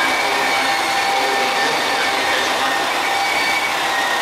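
Diesel engines of a HOT7000 series diesel express train running steadily as the train rolls slowly along the platform, a continuous mechanical noise with no clanks or horn.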